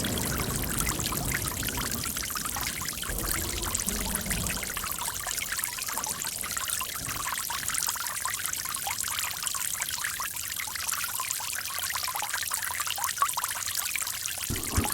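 Running water flowing steadily, a continuous hissing rush with a few deeper swells, about a second in and again around four seconds.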